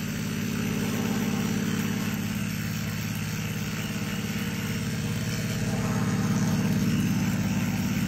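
Electric toothbrush buzzing steadily as it brushes a dog's teeth, growing a little louder about six seconds in.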